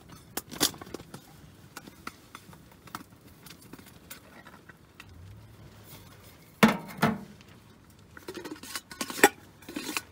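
Fire crackling in a small stove, with scattered small pops and a few louder knocks and clinks, one shortly after the start, two close together about two thirds of the way in, and a cluster near the end.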